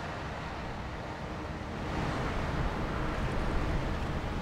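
Wind rumbling and hissing on the microphone over outdoor street ambience, a little louder about two seconds in.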